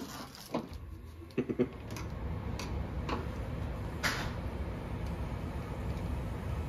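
A few sharp clicks of a screwdriver working on a metal door lever handle as it is unscrewed, the loudest about four seconds in. A steady low rumble comes in about two seconds in and stays underneath.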